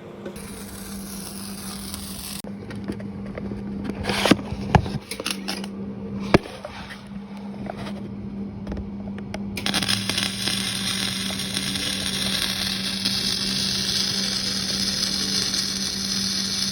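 Stick (SMAW) welding arc crackling as a bead is run, over a steady low electrical hum. The first part has scattered sharp pops; about ten seconds in the crackle turns loud and dense and stays steady.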